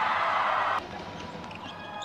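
Crowd noise in an indoor basketball arena, a loud even roar that cuts off abruptly less than a second in, leaving quieter hall ambience.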